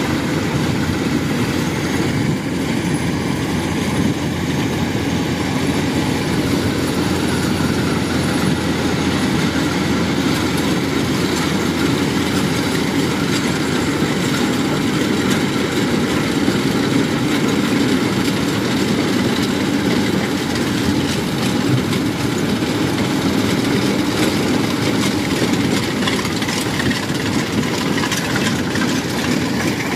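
Kubota rice combine harvester running steadily under load as it cuts rice: its diesel engine together with the clatter of the header and threshing machinery.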